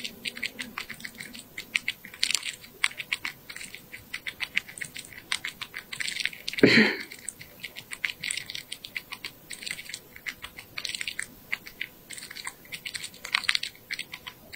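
Ear-cleaning tools scraping and rubbing inside an ear canal, heard close up as a dense run of fine crackles and scratchy clicks, with one louder scrape about halfway through.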